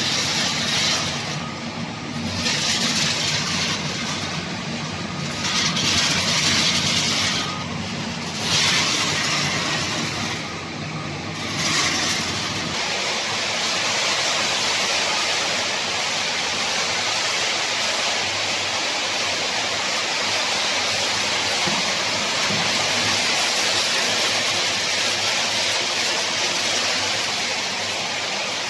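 Pet food processing line machinery running with a steady, hissing mechanical noise. The noise changes every second or two for about the first twelve seconds, then holds steady.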